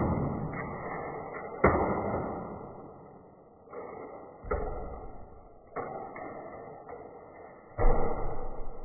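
Die-cast toy monster truck rolling along a plastic toy track and hitting a magnet tile wall: several sharp knocks and clatters, the first about two seconds in, each followed by rolling noise that fades away.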